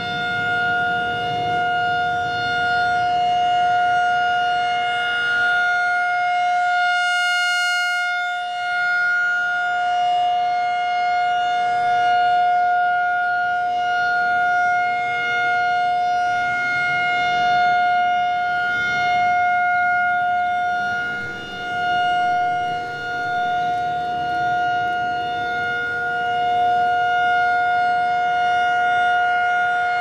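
Federal Signal 2001-SRN rotating electromechanical warning siren sounding its steady alert tone, one held pitch that swells and fades as the horn turns toward and away from the listener. The siren has developed a wobble as it turns.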